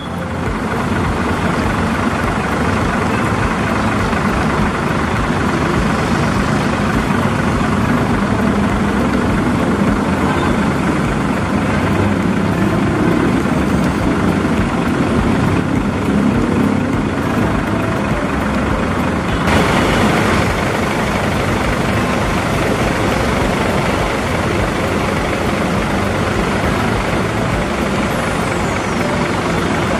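Diesel coach engine idling steadily with a deep low running sound. About twenty seconds in, a short hiss of released air cuts in.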